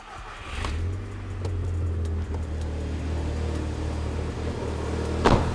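A Volkswagen Mk5 GTI's 2.0T FSI (EA113) turbocharged four-cylinder engine cranks, catches about a second in and settles into a steady idle. A single sharp knock comes near the end.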